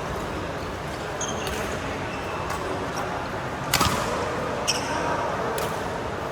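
Badminton rally: sharp clicks of rackets striking the shuttlecock roughly once a second, the loudest a little past the middle, with a couple of short high shoe squeaks on the court floor over a steady murmur of voices in the hall.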